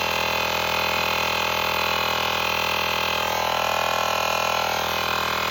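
Electric air pump running steadily, inflating a freshly patched bicycle tyre, with a slight change in its tone about three seconds in as the pressure builds.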